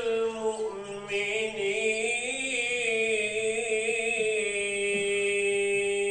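A man's voice chanting a melismatic Islamic religious chant, drawing out long wavering notes and ending on one long held note.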